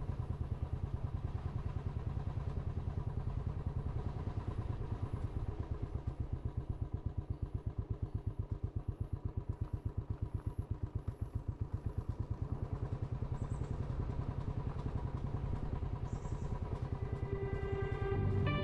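Motorcycle engine running steadily at road speed, a fast low throb that keeps going without a break; music comes in near the end.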